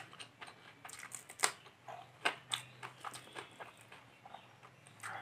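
Fingers mixing rice and mustard-fish curry on a steel plate: irregular soft clicks, taps and small wet squelches, several a second.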